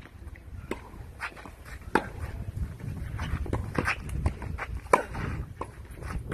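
Tennis balls struck by racquets in a baseline rally on a clay court: a series of sharp pops about a second apart, some closer and louder than others, the loudest about five seconds in.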